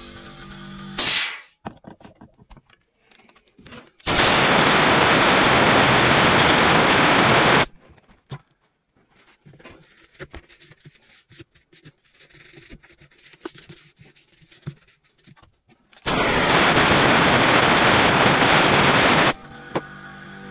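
Two blasts of compressed air from a handheld air blow gun, each about three and a half seconds, cutting in and off abruptly, blowing dirt out of a chainsaw body. Faint clicks and rubbing between the blasts.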